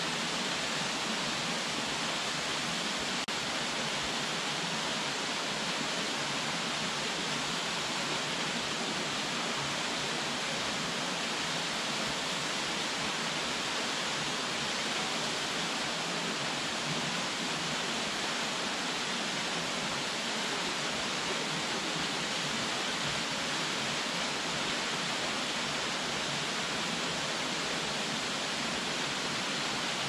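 Minoo Falls, a tall waterfall plunging into its pool, making a steady, unbroken rush of falling water.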